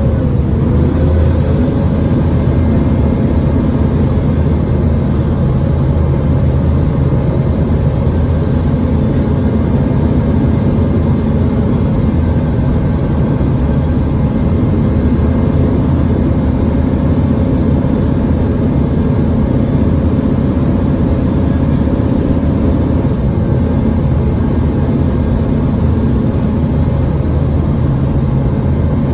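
Interior cabin noise of a Mercedes-Benz Citaro G facelift articulated bus cruising at road speed: a steady engine drone and road noise, with a faint high whine that rises and falls a few times.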